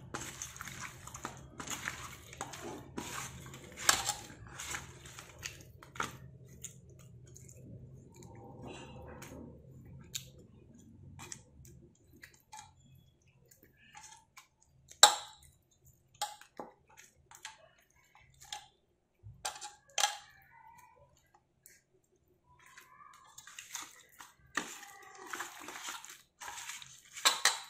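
Small fish being tossed and rubbed by hand in a wet spice marinade in a steel plate: soft squishing with scattered taps and clicks of fingers and fish against the metal, and one sharp clink about halfway through.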